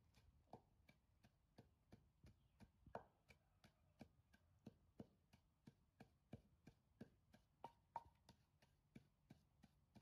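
Wooden pestle pounding in a wooden mortar: faint, regular thuds about three a second.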